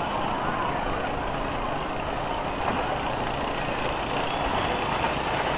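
Several school bus engines running and revving together in a demolition derby, a steady, dense engine noise.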